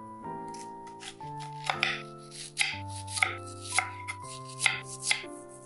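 Chef's knife slicing an onion on a wooden cutting board: a series of crisp cuts, about two to three a second, beginning about half a second in, over background music.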